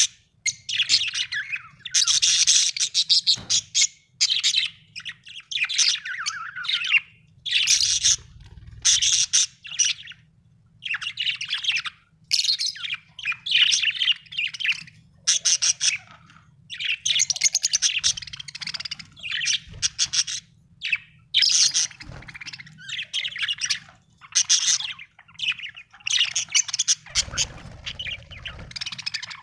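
Budgerigar chirping and warbling in quick, high, chattering phrases of a second or two, with short pauses between them.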